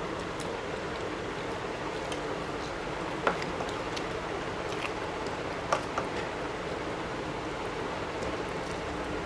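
Two people eating rice and fish curry by hand: soft chewing and mouth sounds over a steady hiss, with a few short sharp clicks about three and six seconds in.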